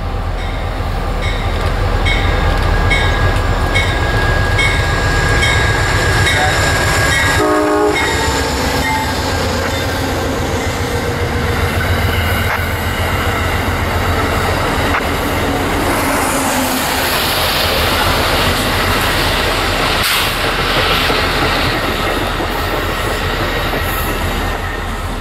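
Amtrak passenger train led by a P42DC diesel passing at speed on the next track: a locomotive bell rings steadily, then a short horn blast about seven seconds in, followed by the rumble and clatter of the passenger cars' wheels over the rails. A diesel locomotive idles steadily underneath.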